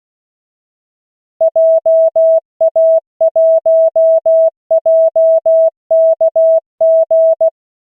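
Computer-generated Morse code (CW) practice tone at 16 words per minute: a steady beep of one pitch keyed into dots and dashes, spelling out a callsign. It starts about a second and a half in and stops shortly before the end.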